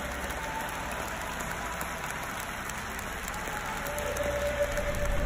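Large stadium crowd applauding and cheering: a dense, even wash of clapping with faint held voices in it, swelling over the last second or so. The applause greets the Fedayn ultras group on their return to the Curva Sud.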